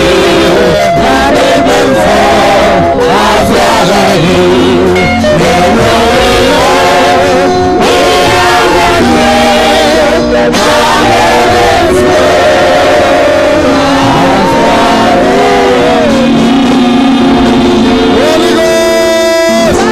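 Praise team singing a gospel song together into microphones over a live church band, loud and continuous.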